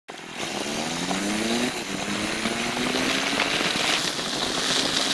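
Motorcycle engine accelerating hard, its pitch climbing, dropping at a gear change about two seconds in, then climbing slowly again. A steady rushing noise of wind runs underneath.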